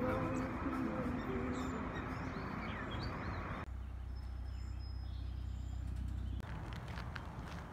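Birds chirping outdoors, with a steady low rumble through the middle stretch; near the end, footsteps on a paved trail begin.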